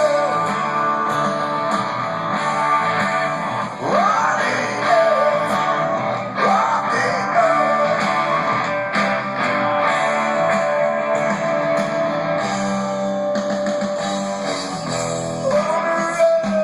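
Rock band playing live at a sound check, led by strummed electric guitars, with a few sliding notes.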